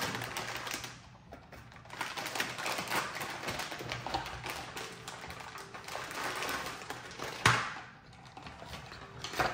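Plastic parts bags crinkling while small hard parts click and rattle against each other and on the table, in many small irregular taps, with one sharper knock about seven and a half seconds in.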